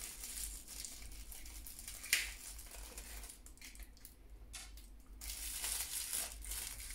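Cellophane and tissue gift wrapping crinkling as fingers work at a small ribboned package to open it, with one sharp click about two seconds in; the crinkling gets busier near the end.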